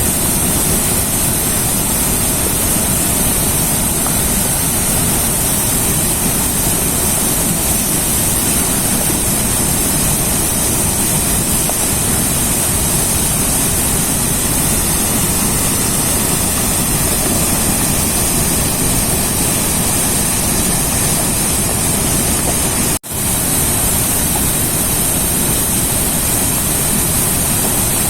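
River water rushing in a steady, even rumble. The sound cuts out for an instant about three-quarters of the way through, then carries on unchanged.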